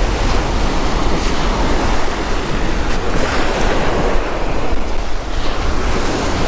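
Rough surf washing onto a sandy beach in a steady rush, with wind buffeting the microphone in a low rumble.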